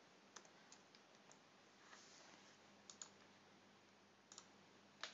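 Near silence broken by a handful of faint, irregular clicks from a computer mouse and keyboard, the loudest near the end.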